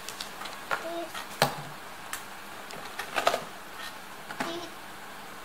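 Scattered light clicks and knocks of toys being handled on a plastic toy counter, with the sharpest knock about a second and a half in and a quick cluster of clicks a little past the middle.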